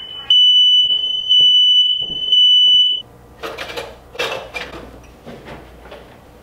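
Kitchen smoke alarm sounding, set off while cooking: a loud, high, steady tone in long beeps with short gaps, cutting off about three seconds in. It is followed by a few knocks and some clatter as things are handled at the stove.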